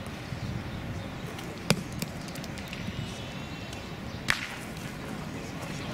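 Two sharp knocks of steel pétanque boules about two and a half seconds apart, a boule being thrown onto the gravel terrain and landing among the others; the second knock has a short ring after it.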